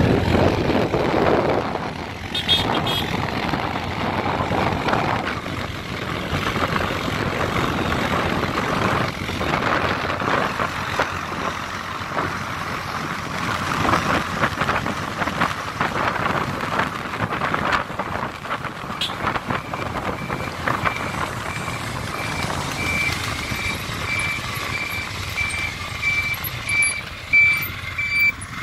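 Wind rushing over the microphone and road and engine noise from a moving motorcycle, with a quad bike riding close by. From about two-thirds of the way through, a high electronic beep sounds repeatedly, about one or two beeps a second.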